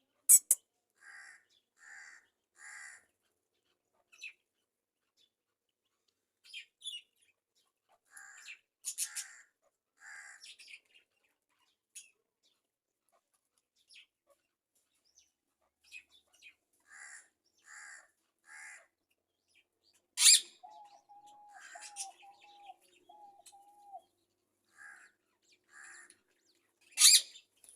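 Pet parrots calling: short calls in groups of three, loud shrill squawks about a third of the way in, just past two thirds and near the end, and a wavering whistle lasting a few seconds.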